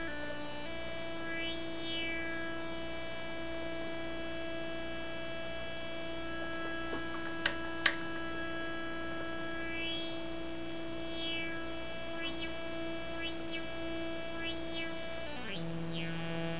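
Auduino granular synthesizer, an Arduino Uno played through a small LM386 amplifier, holding one buzzy note while turning its grain knobs sweeps the overtones up and down in whistling glides. Two sharp clicks come a little before halfway, and near the end the note steps down lower.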